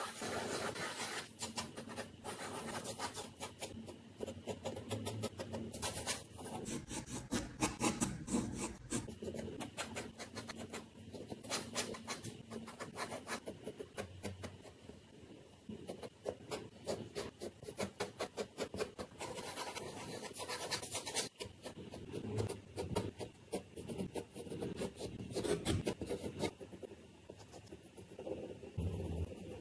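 Graphite pencil scratching and rubbing across drawing paper in many quick, short strokes while sketching, a little quieter for a few seconds near the middle.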